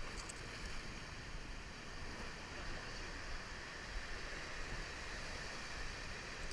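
Ocean surf breaking and washing over shoreline rocks, a steady rush of water.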